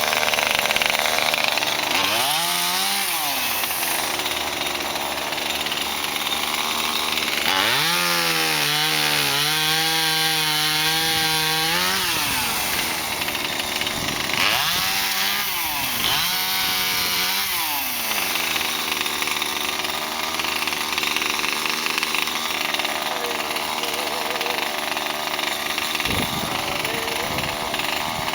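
Two-stroke chainsaw running and cutting into a fallen peppermint tree's wood. It revs up and drops back several times, once held at high revs for about four seconds.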